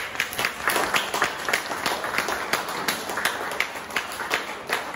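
Applause: a group of people clapping their hands, with single sharp claps standing out in a quick, uneven patter.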